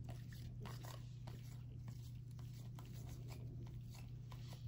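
Faint soft ticks and slides of glossy chrome trading cards being flipped and shuffled one behind another in gloved hands, over a steady low hum.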